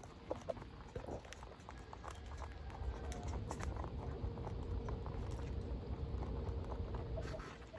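Rabbits feeding: small irregular clicks and rustles of chewing and shuffling over a steady low rumble.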